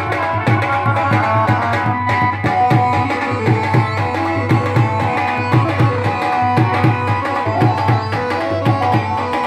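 Instrumental interlude of Punjabi devotional folk music: a dholak drum plays a steady rhythm under a sustained melody line.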